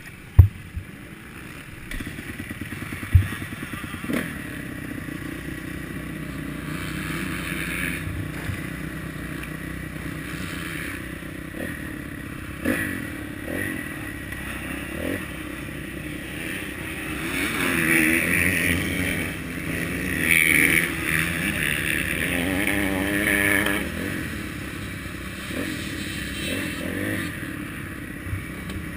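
Motocross bike engine heard from a camera mounted on the bike, riding a dirt track and revving up and down through the gears. The revving is loudest for several seconds about two-thirds of the way through. There is a sharp knock just after the start and another about three seconds in.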